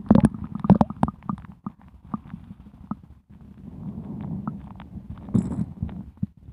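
Underwater sound from a submerged camera: irregular sharp clicks and knocks over a low gurgling rumble, with a short hiss about five seconds in.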